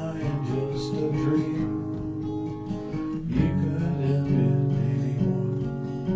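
Acoustic guitar strumming chords, with a chord change about three seconds in.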